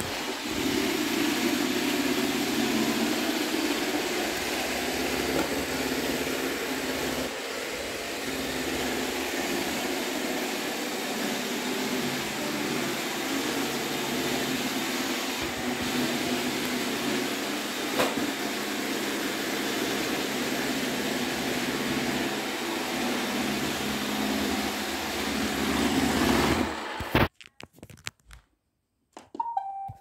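iRobot Roomba 660 robot vacuum running as it drives over wood floor and rug: the steady whir of its vacuum motor and spinning brushes. The sound stops abruptly near the end, and a few short electronic tones follow.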